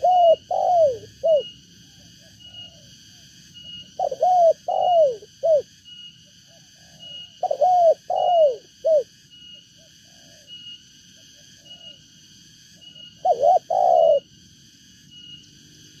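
Spotted dove (tekukur) cooing: four phrases a few seconds apart, each of three or four short falling coos. A faint high chirp repeats steadily in the background.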